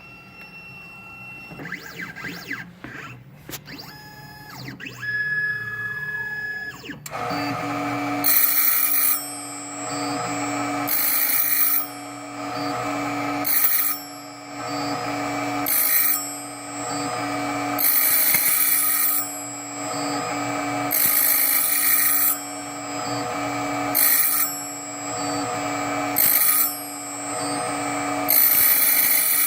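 3D Xtreme S key machine cutting a slot-type key. At first its motors whine through short positioning moves. About seven seconds in, the cutter spindle starts and runs steadily, with a louder burst of cutting noise roughly every two and a half seconds as the slot wheel cuts into the key blank.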